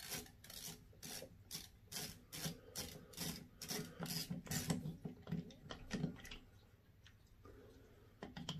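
Faint scraping clicks of a 3/16 Allen driver turning the grip screw out of a Ruger pistol caliber carbine's pistol grip, about two or three a second, thinning out after about six seconds.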